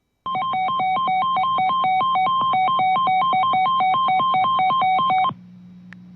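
Emergency Alert System attention tone: a loud electronic alert that switches rapidly back and forth between two pitches for about five seconds, then cuts off suddenly. A low steady hum runs underneath and carries on after the tone stops.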